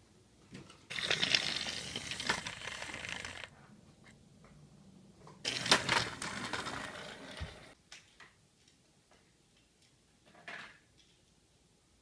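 Plastic TrackMaster toy train and track clattering in two stretches of about two seconds each, each starting and stopping abruptly, with a short faint rattle near the end.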